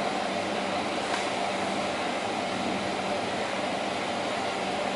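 Steady background hiss with a faint hum and no distinct event; the nail polish brush strokes are not heard.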